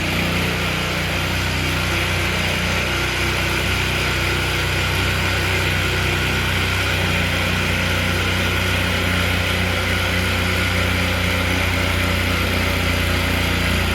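An electric motor-driven tool running at a steady speed for about sixteen seconds, switched on just before and off just after, with a slight change in its tone about seven seconds in.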